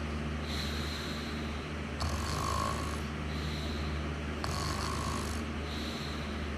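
A person snoring in a slow, even rhythm, with two louder snores about two and a half seconds apart over a steady low hum.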